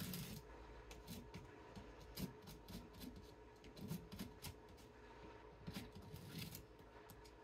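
Faint, irregular crackling and scraping of an old window screen being stripped by hand: the brittle, dried-out plastic spline and mesh being pulled from the frame, with soft knocks of the frame being handled.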